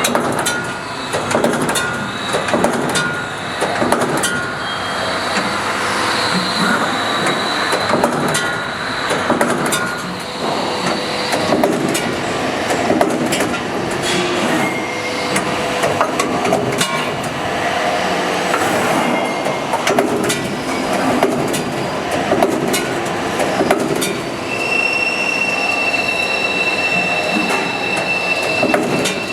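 CNC busbar processing machine working metal busbar: a continuous clattering, mechanical noise with many sharp clicks and high squealing tones. A clear, steady high whine sets in about five seconds before the end.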